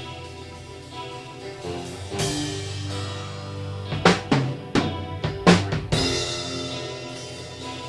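Intro music: held chords, with a run of loud drum hits from about four to six seconds in.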